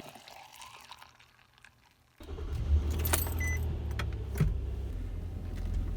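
Near silence for about two seconds, then the steady low rumble of a car heard from inside the cabin, with keys jangling and a few sharp clicks.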